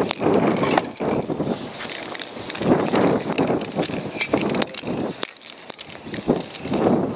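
Aerosol spray paint cans hissing in short passes over the paper, mixed with uneven gusts of wind buffeting the microphone and a few sharp clicks.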